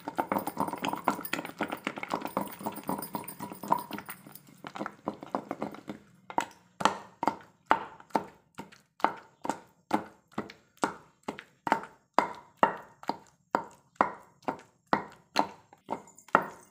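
Wet tomato and green chilli chutney being worked in a stone mortar: a flurry of small wet clicks and scrapes for the first few seconds. After a short pause comes steady pounding with a wooden pestle, about two strokes a second, mashing the chutney to a paste.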